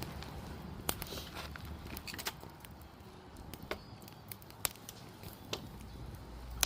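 Firewood burning in a fire pit, crackling with irregular sharp pops.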